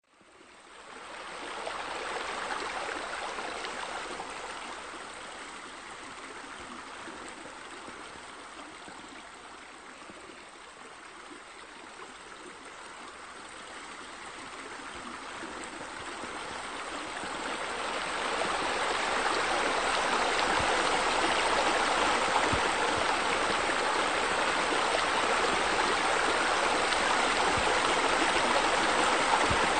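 Steady running-water sound, like fountains and spillways pouring into a pool. It fades in at the start and grows louder through the second half.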